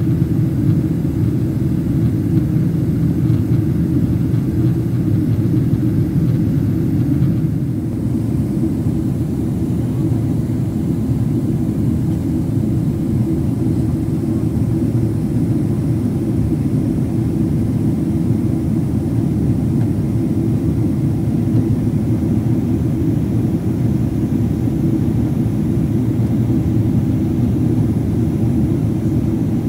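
Steady airliner cabin noise on a night approach: the low rumble of the engines and airflow heard from inside the cabin. It eases slightly about seven and a half seconds in, then holds steady.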